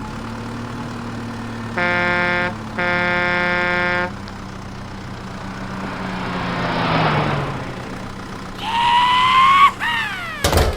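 Cartoon toy-vehicle sound effects: a steady engine hum with a horn honked twice, a short blast then a longer one, about two seconds in. Later comes a swelling whoosh, then whistle-like slides of pitch near the end.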